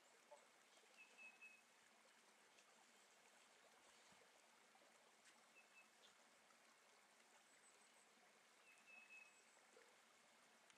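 Near silence: the faint, steady trickle of a small creek, with a few short, high chirps about a second in, near the middle and near the end.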